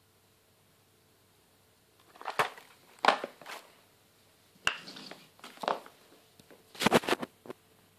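Packaged fireworks being handled: a series of short rustles and knocks of cardboard boxes and plastic wrap, starting about two seconds in.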